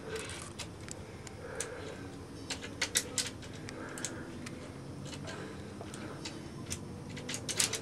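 Scattered sharp metallic clicks and clinks of via ferrata carabiners and lanyard against the steel safety cable, with a cluster of several about three seconds in and another near the end.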